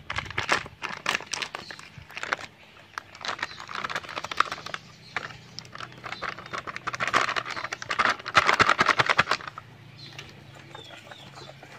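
Foil flour packet crinkling and crackling as it is handled and shaken out over a metal bowl, in quick runs of sharp crackles that are busiest about seven to nine seconds in.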